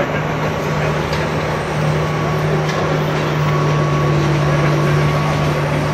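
Large crane's diesel engine idling steadily, a constant low hum, heard from the operator's cab.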